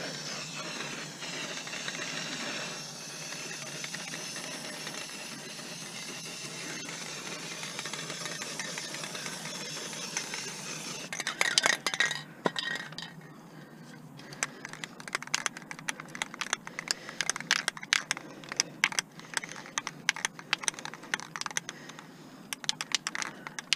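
Aerosol spray-paint can spraying with a steady hiss for about ten seconds. Then comes fast, dense metallic rattling as the can, running low, is shaken to remix the paint.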